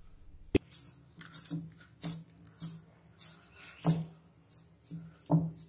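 A hand kneading sticky, wet wheat-flour dough bound with jaggery syrup in a glass bowl, giving short squelches about twice a second. A sharp click sounds about half a second in.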